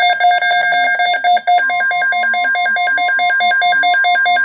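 Weather alert radio sounding its shrill alarm, a beeper warbling rapidly between two pitches about four or five times a second. About a second and a half in, a steady single-pitch weather radio alert tone joins underneath it.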